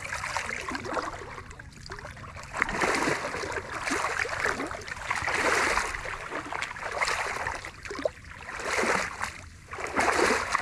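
Water splashing and sloshing in repeated surges, coming back about every second and a half.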